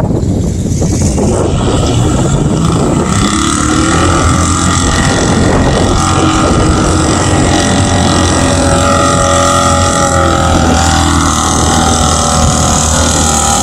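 Jeep Cherokee mud-bog truck's engine at full throttle as it pushes through the mud pit, pitch climbing over the first few seconds and then held high and steady.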